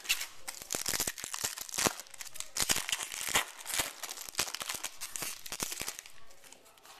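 Paper trading-card pack wrapper being torn open and crinkled in the hands, a run of irregular crackles and rustles that dies away about six seconds in.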